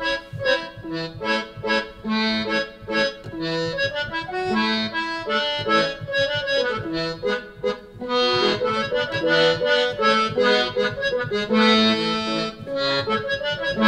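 Mellotron M4000D digital keyboard playing its sampled accordion voice: a bouncy beer-keller style tune of short repeated chords over an alternating bass.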